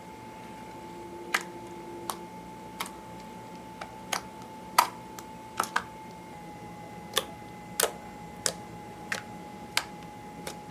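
Clear slime being pressed and folded by hand, giving sharp clicks and pops at irregular intervals, about one or two a second, as air pockets in the slime burst.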